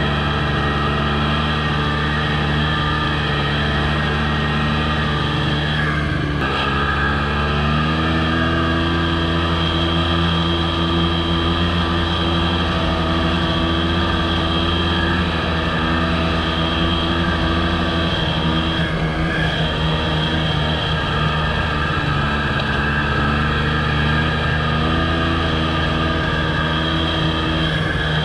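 Snowmobile engine running steadily under load while the sled tows a trail groomer through snow. The engine note steps up a little about seven seconds in, then holds.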